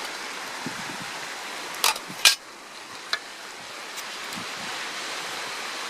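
Camp cookware being handled: a couple of sharp clinks close together about two seconds in and a lighter one a second later, over a steady rushing hiss.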